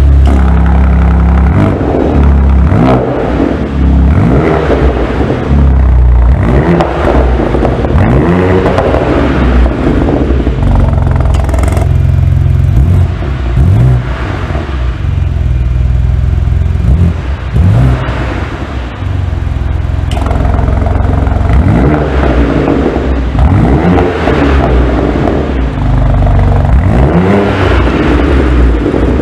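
BMW M2 G87's twin-turbo straight-six through a GRAIL valved aftermarket exhaust, revving again and again, its pitch climbing and dropping many times over a deep, steady low rumble.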